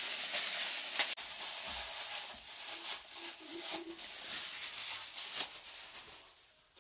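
Clear plastic bag crinkling and rustling in the hands as it is worked open and emptied of dumplings; the crinkling tapers off near the end.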